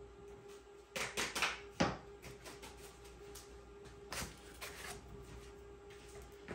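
Soil-filled black plastic nursery pot handled and set down on a ridged plastic tray: a quick cluster of knocks and scrapes about a second in, then two more single knocks around four seconds in.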